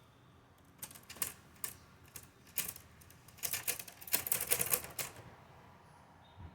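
Typewriter keys clacking in irregular strikes, a few separate ones at first, then a fast dense run of strikes about three and a half seconds in that stops about a second later.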